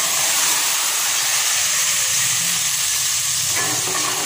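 Hot oil tadka with fried onions poured into a pot of kadhi, sizzling loudly as the oil hits the liquid. The sizzle is steady at first and slowly dies down.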